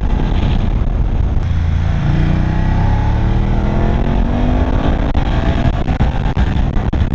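BMW F 750 GS's 853 cc parallel-twin engine pulling hard under acceleration, its pitch rising steadily from about two seconds in, heard from on the bike over wind rush.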